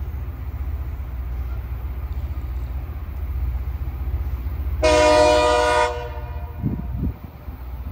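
Low diesel rumble of a Loram rail grinder on the track, with one horn blast about a second long, a chord of several notes, about five seconds in.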